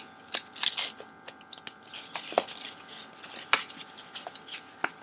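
A sheet of paper being folded and creased by hand: irregular crisp crackles and rustles, with a couple of sharper snaps, over a faint steady hum.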